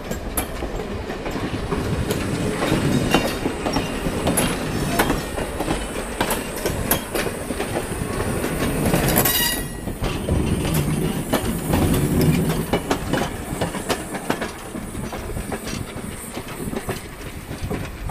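Passenger coaches and a caboose of a train rolling past at close range: the wheels clatter with irregular clicks over the rail joints over a steady rumble, and a brief high squeal comes about halfway through.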